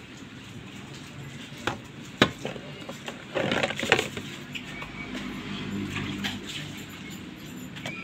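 A few sharp clinks and knocks, with a quick cluster of them about three and a half seconds in, as chunks of white food are handled and dropped into a steel bowl of water.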